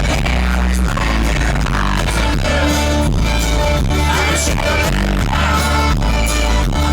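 Live band playing loudly with singing, captured by an audience member's recording of poor quality.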